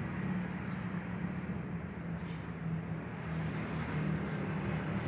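Steady low mechanical hum over an even background noise, with no change in level.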